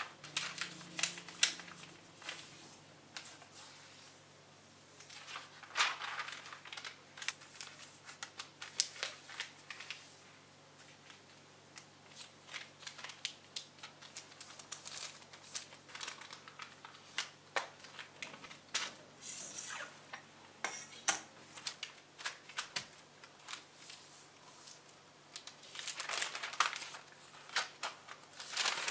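Baking paper being folded and creased by hand: irregular crinkling and rustling with sharp crackles as the folds are pressed down, louder around six seconds in and near the end.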